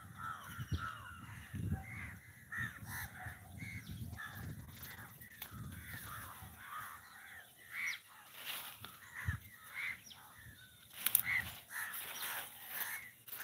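Crows cawing over and over, many short calls through the whole stretch, the loudest cluster of calls about two-thirds of the way in.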